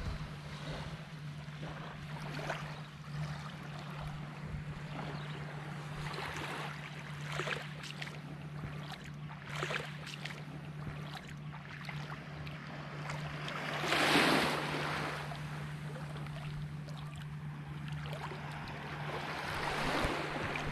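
Shallow sea water lapping and swishing at the shoreline in irregular soft surges, one louder swash about 14 seconds in, over a steady low hum.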